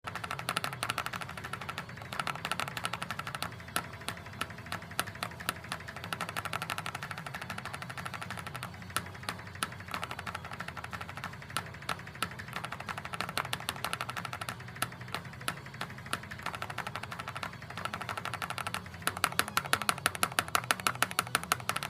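Many rapid, irregular clicks over a steady low hum, the clicks coming faster and more evenly near the end.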